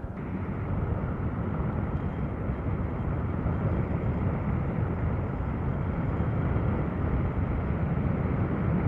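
Steady rush of wind and road noise from a Yamaha Sniper 150 motorcycle ride, picked up by the rider's microphone.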